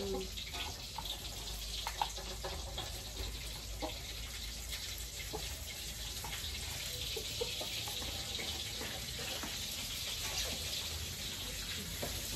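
Steady sizzling hiss of tofu frying in hot oil, growing a little stronger through the second half, with scattered light clicks and taps from tofu being cut by hand into a plastic bowl.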